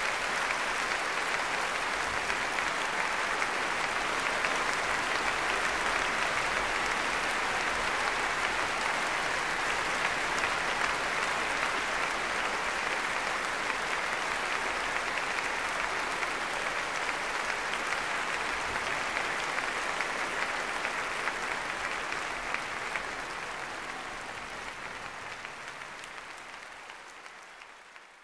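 A large audience applauding in a concert hall, a dense steady clapping that fades out over the last few seconds.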